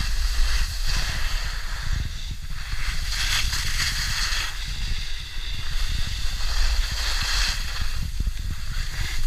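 Skis and snowboard scraping and hissing over snow in a run of turns, the hiss swelling and fading about five times. Steady wind rumble on the microphone from the downhill speed runs underneath.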